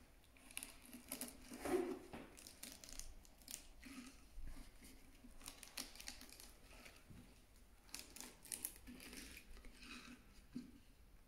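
A blade cutting a long-pimple table tennis rubber without sponge along the edge of the racket blade: faint, irregular scratching and crackling cuts as the rubber is held under tension and trimmed bit by bit.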